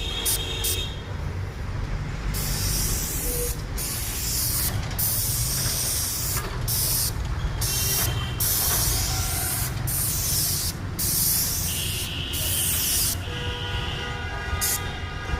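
A paint spray gun hissing in spurts that stop and start every second or two as the trigger is pulled and released, over the low steady hum of the spray machine.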